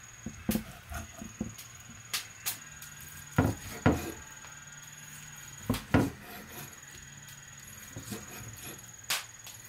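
A large cleaver cutting raw pork fat on a thick round wooden chopping block, with irregular knocks of the blade against the wood. The loudest knocks come in two pairs about half a second apart, a little past a third of the way in and again past the middle.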